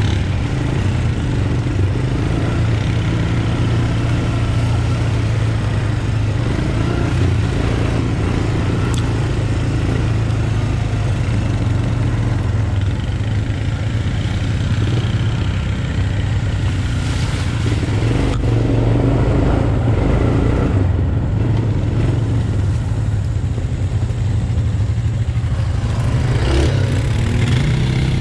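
Honda Recon 250 ATV's air-cooled single-cylinder four-stroke engine running steadily under way, heard close up from the quad itself.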